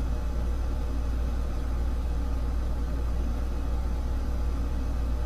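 Steady low hum with no other sound standing out.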